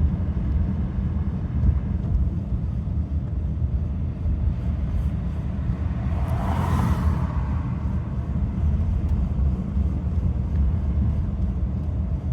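Steady low rumble of a 2015 Subaru Forester being driven at low speed. A brief rushing noise rises and fades about six to seven seconds in.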